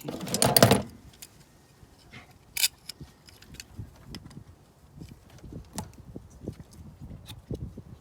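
A brief loud rattle of plastic as the protective cap is pulled off the new car battery's positive terminal, followed by a sharp click and scattered light clicks and knocks of handling around the terminal.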